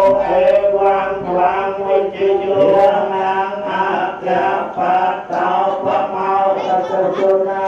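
Chanting voices singing long, drawn-out notes in a continuous flow with only brief pauses for breath.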